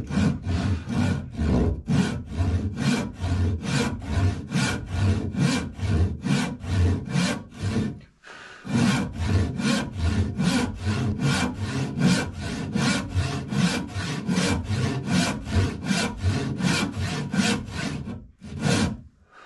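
Hand saw cutting through wood in steady back-and-forth strokes, about two and a half a second. The sawing breaks off briefly about eight seconds in, then carries on until just before the end.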